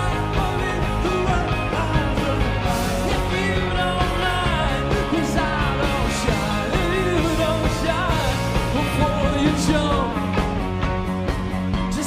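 Music: a song with drums, bass and a wavering melodic lead line.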